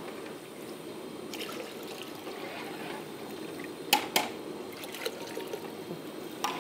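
Water running steadily in a kitchen. Two sharp knocks come about four seconds in, and a lighter one near the end.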